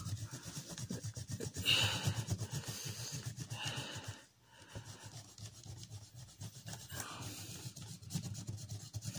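Coloured pencil rubbing back and forth on paper in quick shading strokes, with a brief pause about four seconds in.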